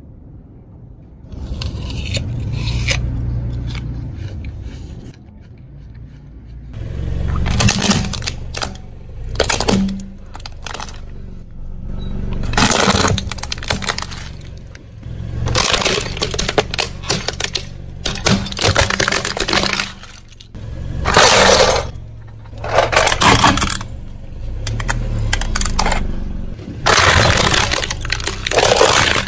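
A car's tyres rolling over and crushing brittle objects: a series of crunching, cracking bursts over the low hum of the engine.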